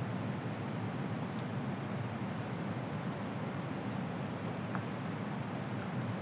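Steady rush of a fast-flowing river over rocks, a low, even noise with no breaks. A thin, high steady tone sits above it and pulses briefly midway.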